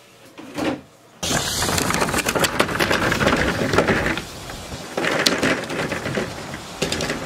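Quiet room tone for about a second, then strong wind buffeting the microphone outdoors: a loud, rough rushing noise full of crackles that eases a little partway through.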